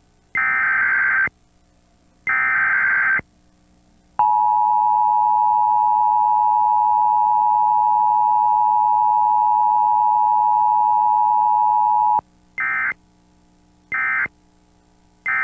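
Emergency Alert System tones: the last two of the three SAME header data bursts, each a harsh, buzzy screech about a second long, then the EAS two-tone attention signal held steady for about eight seconds. It ends with three short data bursts, the end-of-message code.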